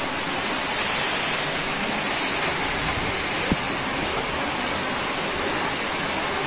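Heavy rain pouring down in a steady, even hiss, with one brief tap about three and a half seconds in.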